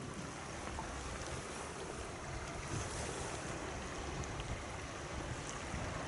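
Seaside ambience: steady wash of sea waves with wind on the microphone.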